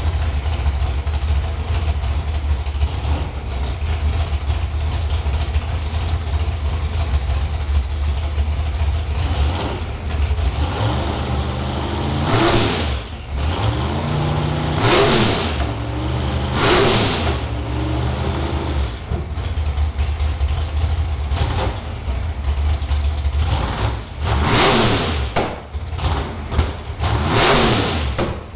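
Race truck's V8 engine with open headers idling steadily, then revved in a series of sharp throttle blips, about five big ones and a few smaller, over the second half. The engine is being tested on a newly fitted MSD ignition box.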